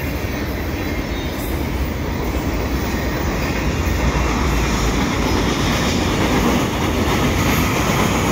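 CN double-stack container well cars rolling past on a steel girder railway bridge: a steady rumble of freight wheels on rail, growing slowly louder.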